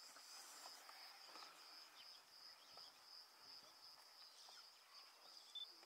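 Faint, steady high-pitched insect trill, like crickets, with a few brief faint chirps over it.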